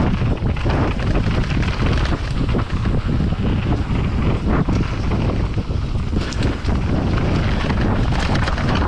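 Wind buffeting the microphone during a fast mountain bike descent, over the steady rumble of tyres on a dirt trail, with many short knocks and rattles from the bike going over rough ground.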